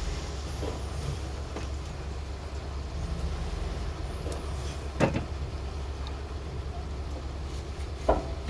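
Construction machinery engine running with a steady low rumble, with two sharp knocks, about five seconds in and again near the end.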